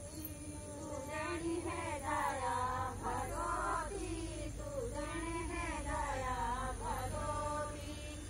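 Women singing a folk dance song together, the melody rising and falling in phrases a second or two long, with no instruments.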